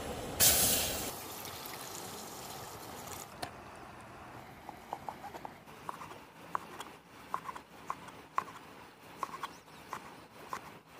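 Close-up eating of a crispy fried patyud snack: a short loud crunchy burst about half a second in, then a run of small, irregular mouth clicks from the chewing.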